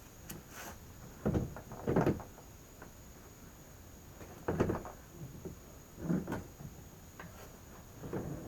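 Plastic kayak hull knocking and scraping against a homemade kayak cart and wooden deck boards as it is shoved further up onto the cart: about five short, dull bumps spread over several seconds.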